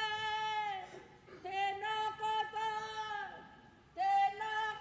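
A woman's karanga, the Māori ceremonial call: one high voice held on a long note in phrases that each trail off in a falling glide. The call breaks about a second in and again past the three-second mark, and starts again near the end.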